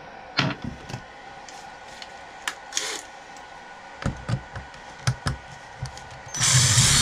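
Small hand tool clicking and tapping against the plastic hub carrier of a Traxxas X-Maxx RC truck while a pin is worked out, in scattered single clicks. A louder rustling scrape comes near the end.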